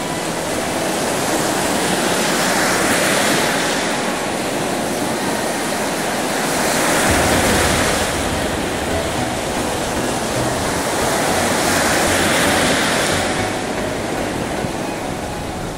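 Baltic Sea surf breaking on a sandy beach, the rush of the waves swelling and fading about every four to five seconds.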